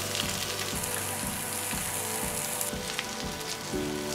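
Pork and egg-battered patties sizzling in oil on a hot griddle, a steady crackling hiss, with light background music underneath.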